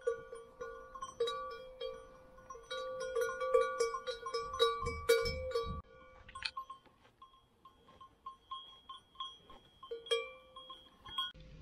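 A bell on a grazing cow's neck clanking irregularly as the animal moves its head, the same metallic clang repeating. The strikes come thick and loud for the first half, then thin out and grow quieter.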